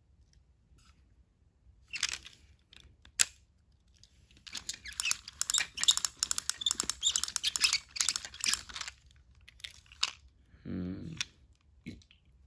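Plastic clicking and scratching from a battery-powered toy train engine being handled and pried open. There are two sharp clicks, then several seconds of dense clicking and scraping, and a brief low hum near the end.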